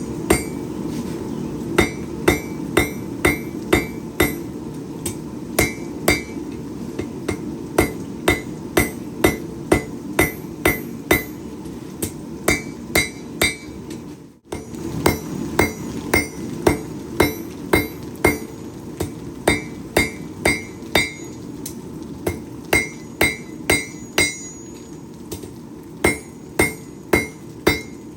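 Hand hammer striking hot steel on an anvil while forging out a knife blade: runs of ringing blows about two a second, broken by short pauses, over a steady low background rumble. The sound cuts off for a moment about halfway through, then the hammering goes on.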